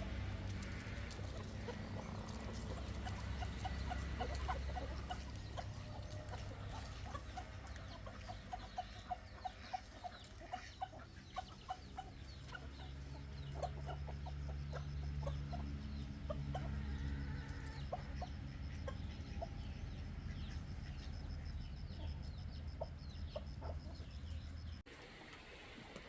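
Chickens clucking, a long series of short clucks over a steady low rumble. The rumble cuts off abruptly near the end.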